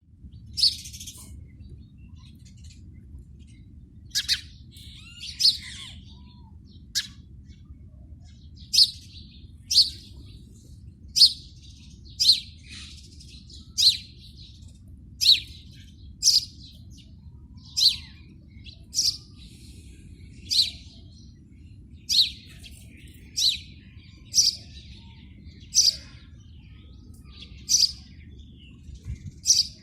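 House sparrow chirping: single short, sharp chirps repeated about once every second or so through the whole stretch, over a steady low rumble in the background.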